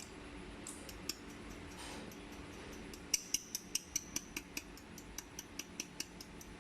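Jewelry laser welding machine firing a rapid train of pulses, each a sharp tick, about five a second for some three seconds, over the machine's steady low hum. A few single ticks come earlier.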